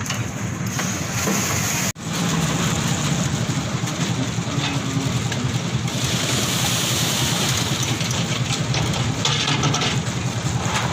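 An engine running steadily with a low drone, mixed with general site noise; the sound cuts out for an instant about two seconds in, then resumes.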